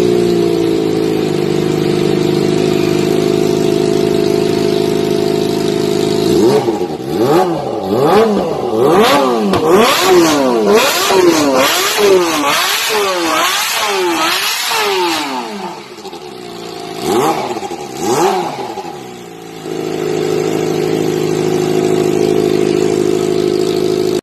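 Kawasaki ZX-25R's inline four-cylinder engine through an aftermarket Valcon exhaust, idling steadily, then revved up and down repeatedly in quick blips, about one a second, before settling back to idle near the end.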